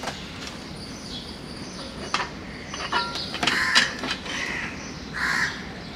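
Packaging being handled: a few clicks, knocks and rustles as the camping stove's box and plastic carry case are moved about. A bird calls in the background.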